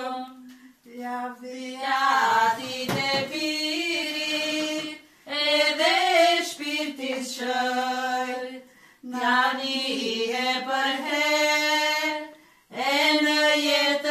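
Women's voices singing a traditional Arbëreshë song unaccompanied, in long phrases of held notes separated by short breaths.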